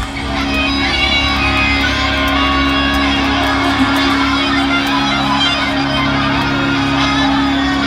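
Live electric guitar played through a large outdoor concert sound system, with a steady low note held underneath.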